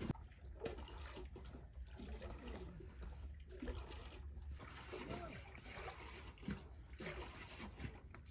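Liquid sloshing inside a clay butter churn as it is rocked back and forth to churn yogurt, in a series of uneven soft swishes.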